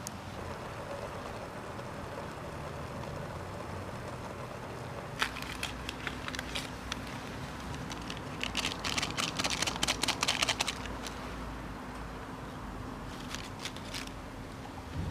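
Steady road-traffic noise, with scattered sharp clicks from about a third of the way in and a dense run of crackling a little past the middle.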